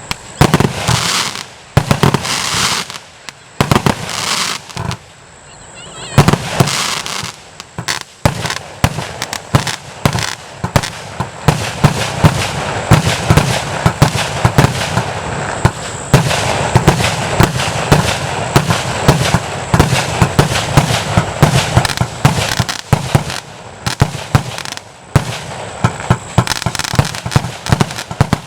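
A 240-shot compound fireworks cake firing rapid volleys of sharp reports. After a brief lull about five seconds in, it settles into a fast, nearly continuous barrage of shots.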